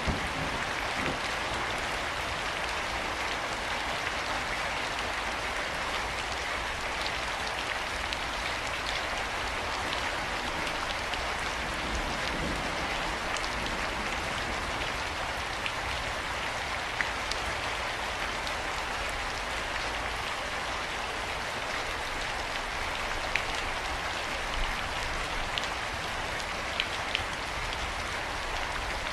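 Steady rain falling, an even hiss of drops with a few louder single drips ticking out now and then.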